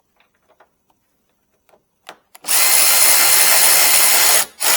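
Cordless drill/driver running a 10 mm bolt in: a short blip on the trigger, then a steady run of about two seconds starting about halfway through, and another short blip as it stops. A few faint small clicks come before it.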